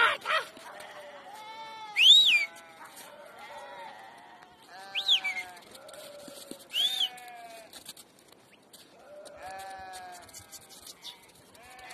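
A flock of sheep and goats bleating, one call after another every second or two, with calls overlapping. Three times a loud, shrill call rises and falls in pitch; these are the loudest sounds.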